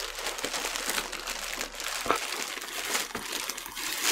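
Packaging crinkling and rustling as hands pull it apart and out of a vinyl record's shipping package, with a few sharper crackles.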